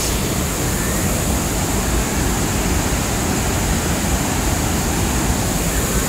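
Steady roar of a large waterfall, water crashing down over a rock drop.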